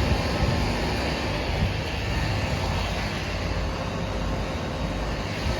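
Steady whooshing hum of outdoor air-conditioning condensing units running, with a low rumble underneath.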